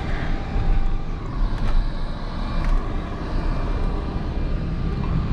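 Vehicle running, a steady low rumble with faint clicks and rattles.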